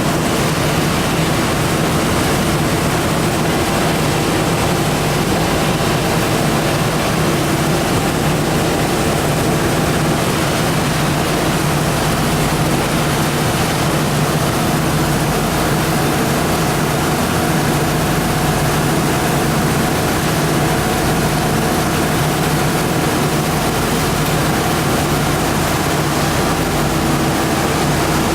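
Copper wire recycling machine running steadily: a constant motor hum under a loud, even rushing and grinding noise.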